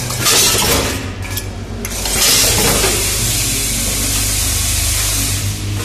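Vertical form-fill-seal packing machine for screws, nails and other small metal parts running in automatic mode: a steady low hum under long stretches of hiss.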